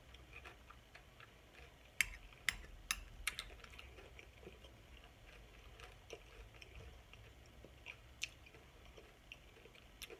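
Close-up chewing of a mouthful of taco soup with tortilla chips, with a quick run of sharp wet mouth clicks about two seconds in and a few scattered clicks later.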